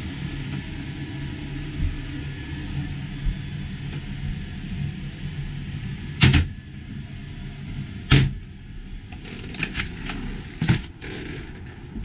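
Steady hum of a Mabru 7,000 BTU 12 V DC marine air conditioner running, with the unit open in its cabinet. About halfway through the hum drops away, and several sharp knocks follow, a second or two apart.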